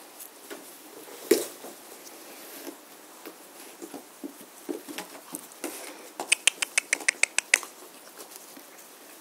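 German shorthaired pointer puppies playing with toys on grass: scattered light taps and rustles, a sharp knock about a second in, and near the end a quick even run of about ten sharp clicks.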